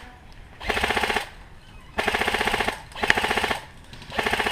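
Airsoft electric gun firing four short full-auto bursts, each under a second, a fast buzzing rattle of shots with brief pauses between bursts.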